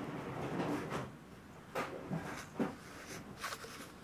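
A few light knocks and scuffs, about a second apart, of shoes being nudged on a stone floor as a cat pushes and rubs against them.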